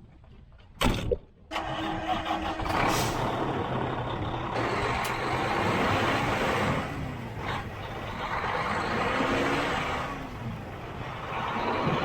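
Two sharp knocks about a second in, then a semi truck's diesel engine starts and runs steadily.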